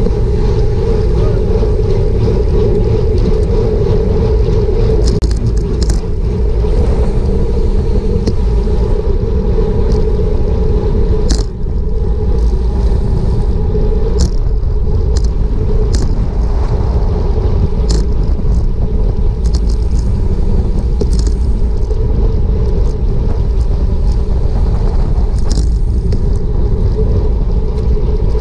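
Wind rushing and rumbling over a GoPro microphone on a road bike racing at speed, with tyre noise on asphalt and a steady hum, and scattered short sharp clicks throughout.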